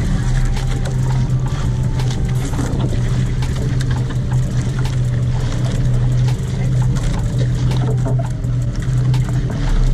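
Fishing boat's engine running steadily with an even, deep hum.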